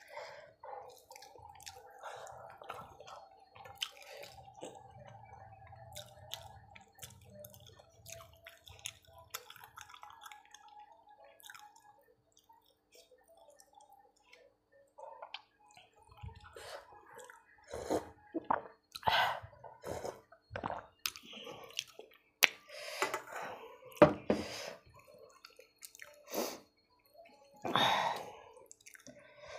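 Close-up eating sounds: fingers squelching and mixing rice with sour dal on a steel plate, with wet clicks, lip smacks and chewing. The sharpest smacks come in the second half.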